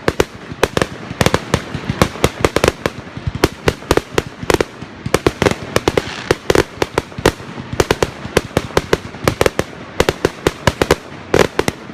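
Fireworks going off in a rapid, irregular barrage of sharp bangs, several a second, thinning out at the very end.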